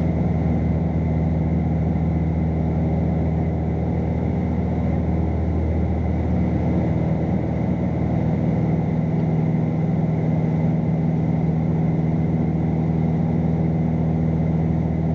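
Piper Malibu's engine and propeller droning steadily in flight at constant power, heard inside the cabin.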